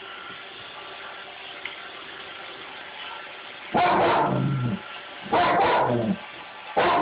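Dog barking: three loud, drawn-out barks in the second half, each dropping in pitch, about a second and a half apart.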